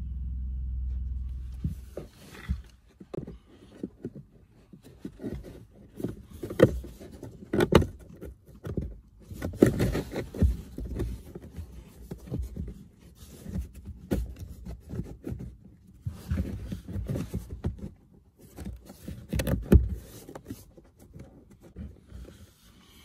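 A new pleated cabin pollen filter being bent and pushed by hand into its plastic housing under an Audi Q3's dashboard: irregular rustling, scraping and sharp knocks of filter media against the plastic, after a low rumble that fades out in the first two seconds.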